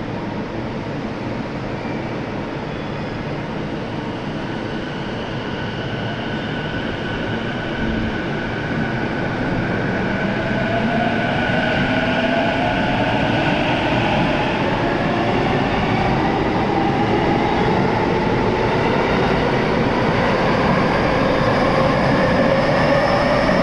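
JR East E233 series electric train pulling away and speeding up, its motors giving several whines that climb steadily in pitch from about ten seconds in, over a rumble that grows louder as it gathers speed.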